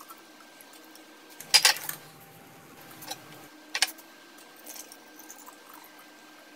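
Glass bottles clinking against the counter and bowl as they are handled, two sharp clinks about a second and a half and nearly four seconds in. Between the clinks there are a few lighter ticks and a soft pour of hot sunflower oil into a glass bottle.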